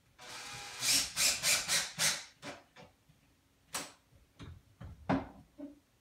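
Hands fitting a hook rack to a garage door: a brief rasp, then a run of short rasping strokes about three a second, then a few single scrapes and clicks spaced further apart.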